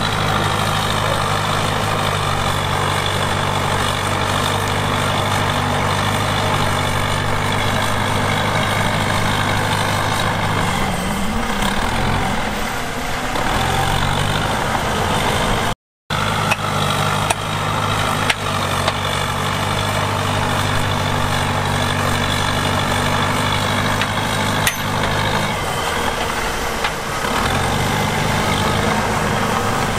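Heavy diesel engine of earthmoving equipment running steadily. Its pitch wavers and dips twice, as the engine takes load. The sound breaks off briefly about halfway, and a few sharp clanks follow soon after.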